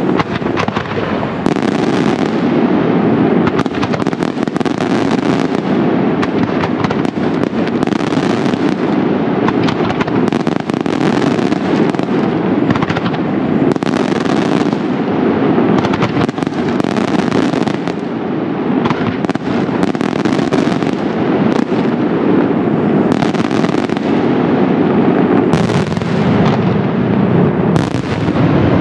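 Italian daytime fireworks: a dense, unbroken barrage of aerial shells and salutes bursting, the bangs overlapping so fast that they merge into a continuous crackling rumble.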